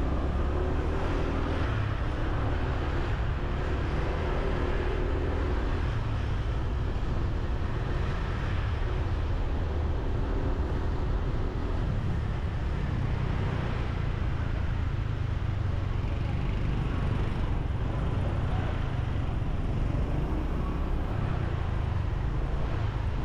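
Ride-along sound of a motorbike in town street traffic, heard from the bike itself: its engine and road noise under a steady low rumble, with surrounding cars and scooters.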